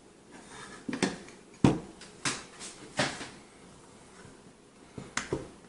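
Handling noise: a string of sharp knocks and clicks as things are shifted and set down on a hard surface. The loudest knock comes a little under two seconds in, and two quick clicks come near the end.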